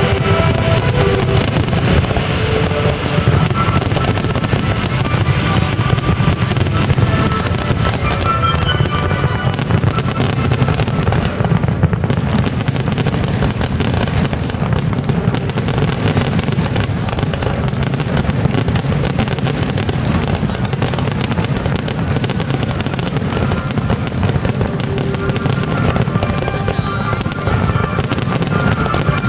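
Fireworks display bursting continuously in dense, rapid bangs over a low rumble, with music playing alongside.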